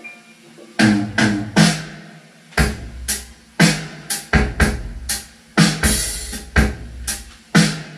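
Drum-heavy test music played through a rig of Jackhammer woofers, JBL subwoofers and Crown horn tweeters driven by one power amplifier. It starts about a second in, with a deep kick and cymbal hit landing about once a second.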